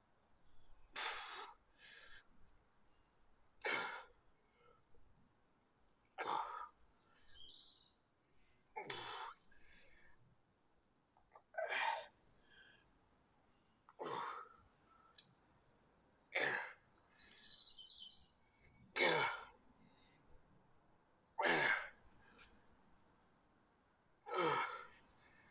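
A man breathing out hard through the mouth about ten times, one forceful exhale every two and a half seconds, in time with each rep of slow alternating dumbbell curls.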